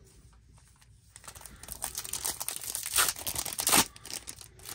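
Wrapper of a Topps Chrome Platinum baseball card pack crinkling and tearing as it is ripped open by hand. It starts about a second and a half in, with the loudest crackles near the end.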